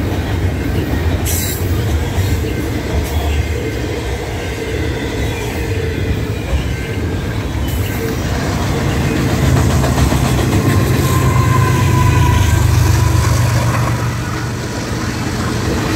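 Double-stack intermodal freight train rolling past: a steady low rumble of wheels on rail that swells to its loudest about ten to thirteen seconds in as a mid-train Kansas City Southern diesel locomotive comes by. A brief faint wheel squeal about eleven seconds in.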